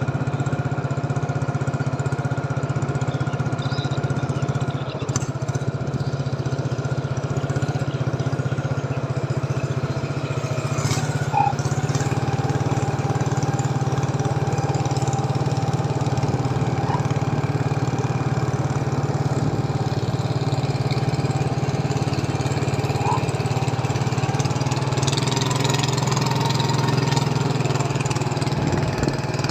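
Small boat engine running steadily at a constant speed, a continuous low hum.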